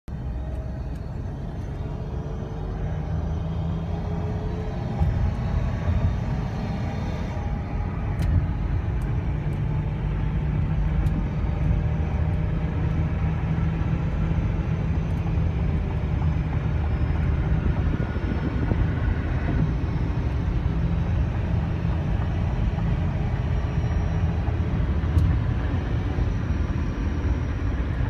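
Cabin noise of a 2005 Chrysler Town & Country minivan driving on a highway: a steady low rumble of tyres, wind and engine, with a faint engine whine drifting in pitch. It grows a little louder over the first several seconds, then holds steady.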